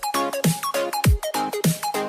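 Electronic dance music with a deep kick whose pitch drops, hitting about every 1.2 seconds, under short synth notes that slide down in pitch.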